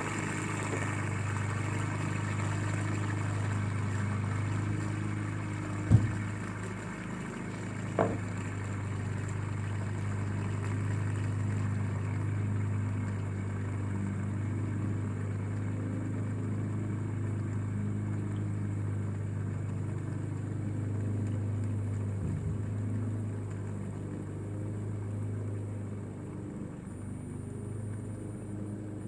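Fidget spinner whirring in a steady low hum while it spins down. A sharp knock about six seconds in and another about two seconds later.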